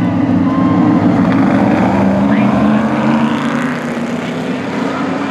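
Field of race trucks' engines running together in a loud, steady drone as the pack goes through the start of the race, easing slightly after about three and a half seconds.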